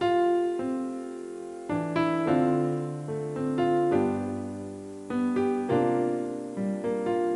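Background piano music: slow chords and melody notes struck and left to ring out.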